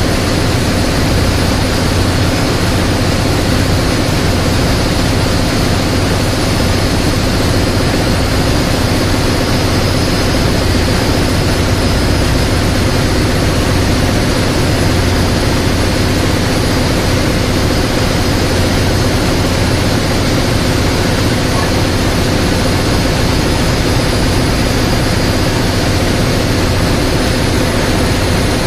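Loud, steady drone of a ship's engine-room machinery running, a constant noise with steady hums and no change throughout.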